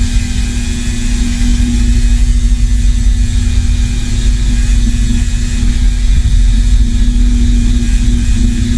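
Electric power tool motor running steadily, a loud even hum with a hissing whir over it.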